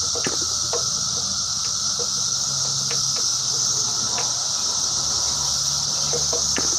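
A small model airplane engine that is not running, turned over by hand to start it: a few faint, irregular clicks over a steady high-pitched hiss.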